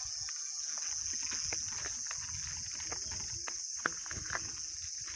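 Steady high-pitched drone of insects, with a low rumble of wind on the microphone and a few faint clicks.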